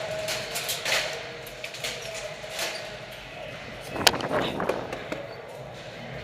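Scattered sharp clicks and knocks, the loudest a single sharp crack about four seconds in.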